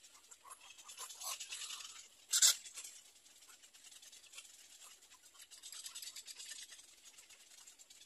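Little egret nestlings giving soft, rapid ticking chatter calls, with one short, sharp, louder rasp about two and a half seconds in.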